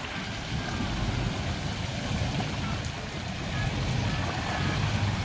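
Engine of a Toyota Land Cruiser Prado running at low revs under load as the SUV climbs out of a water crossing up a steep rock slope, a low steady rumble that swells a little near the end.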